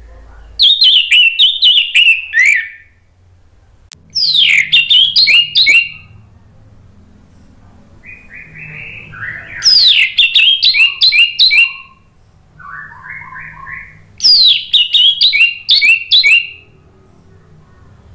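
Orange-headed thrush (anis merah) singing its loud, open ngeplong song in four phrases of about two seconds each. Each phrase is a quick run of falling whistled notes. Softer, lower warbled notes come between the later phrases.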